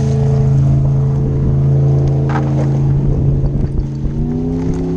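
Motorboat engine running steadily close by, its pitch rising a little about four seconds in, with water splashing.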